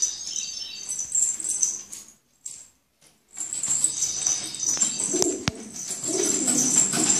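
Domestic pigeons flapping their wings, broken by a short dropout about two seconds in and a sharp click a little past the five-second mark.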